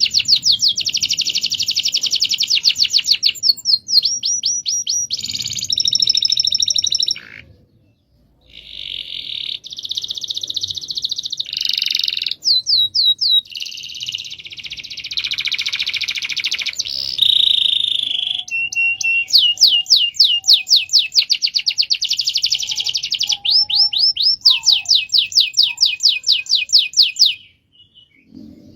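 Domestic canary singing long rolling trills: fast runs of repeated high notes changing from one trill to the next, with a short break about eight seconds in and another near the end.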